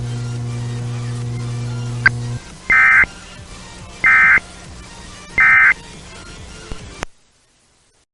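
Emergency Alert System End of Message code: three short bursts of data tones, each about a third of a second long and just over a second apart. They follow a steady low hum that stops about two seconds in, and the audio then cuts off abruptly.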